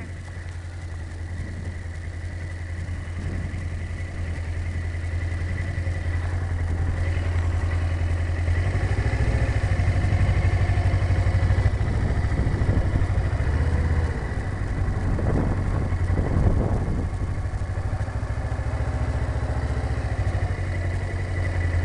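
Motorcycle engine running at low speed, heard from inside the rider's helmet with wind noise over it; it grows louder over the first ten seconds or so.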